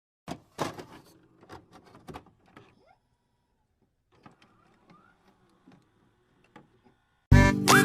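Faint, scattered clicks and rustles of a snow globe's box and packaging being handled. Background music with a harmonica starts near the end.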